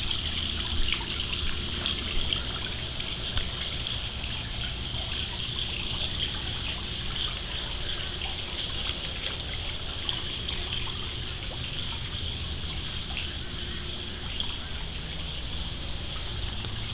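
Steady trickling and splashing of swimming-pool water, with a low steady hum underneath.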